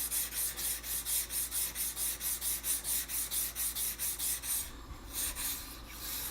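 High-carbon steel butcher's knife stroked back and forth on a coarse 200-grit water stone: a rhythmic gritty scraping at about three to four strokes a second as the stone removes metal. The strokes stop for over a second about two-thirds of the way in, then start again near the end.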